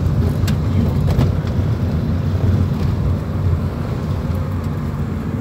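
Steady low rumble of a moving car heard from inside the cabin: engine and tyre noise on a rough road, with a couple of light knocks about half a second and a second in.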